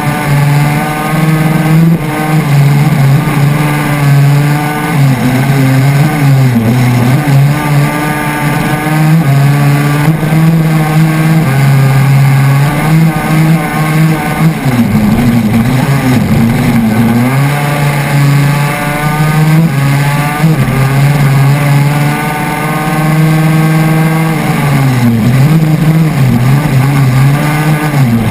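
Crosskart's KTM 250 SX two-stroke single-cylinder engine racing at high revs. The pitch holds high on the straights, drops three times as the driver lifts off for corners, and climbs again each time.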